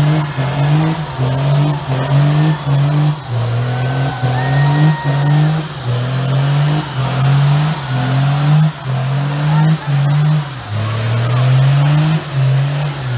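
Lifted square-body Chevy pickup's diesel engine revving hard over and over during a burnout, pitch rising and dropping back a little over once a second while the rear tires spin.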